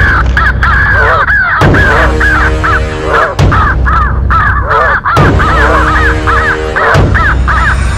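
A group of American crows cawing over and over in rapid, overlapping calls as they mob a great horned owl. Background music with sustained notes plays underneath.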